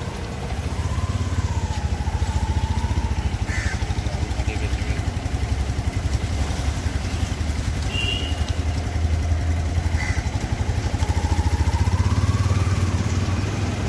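A small engine running with a fast low throb, its whine slowly rising and falling in pitch, louder in the first few seconds and again near the end.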